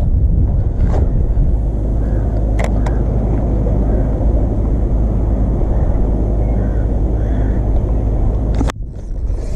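Wind buffeting the camera microphone: a steady low rumble, with a few light clicks. It cuts out briefly near the end.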